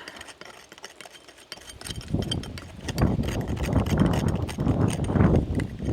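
Repeated puffs of blowing to clear dust and debris out of a joint in a stone wall before lime pointing. The blowing comes as several gusty surges with a low rumble, starting about a second and a half in.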